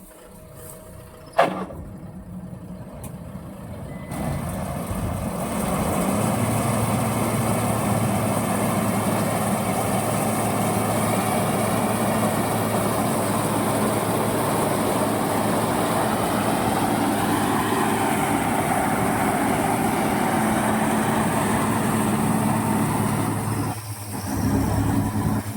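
Combine harvester running steadily: an engine hum under a broad rush of machine noise. It builds up about five seconds in, after a quieter start broken by one sharp click, and dips briefly near the end.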